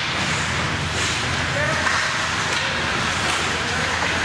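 Ice hockey rink ambience during play: a steady noise bed with indistinct spectator voices and a few faint clicks of sticks and puck on the ice.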